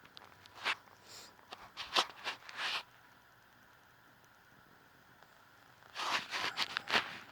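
Handling noise: quick clicks and rustling scrapes in two short bouts, about a second in and again near the end.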